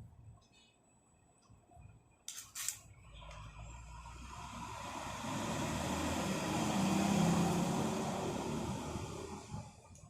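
A road vehicle passing by, its engine and tyre noise growing louder to a peak and then fading away, after a couple of sharp clicks about two and a half seconds in.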